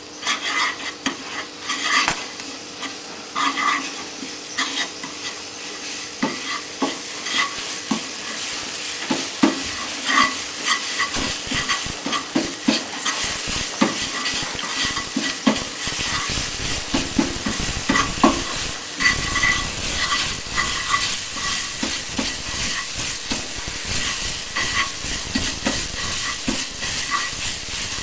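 Garlic and pepper paste sizzling in hot oil in a small nonstick frying pan while a spatula stirs it, with frequent light scrapes and taps against the pan. The paste is being sautéed until fragrant.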